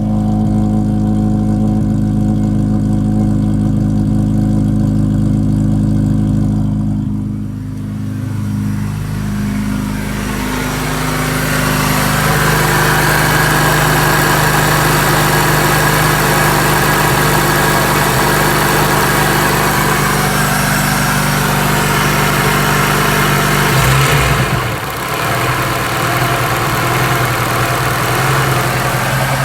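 Honda RSX's four-cylinder engine running steadily, apparently just after its repaired fuel pump assembly was put back in. About ten seconds in, a rushing noise builds over the steady engine note, and the note briefly changes near the end.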